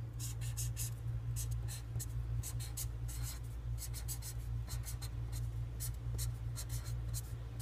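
Felt-tip marker scratching across paper in a series of short strokes as letters are written. A steady low hum runs underneath.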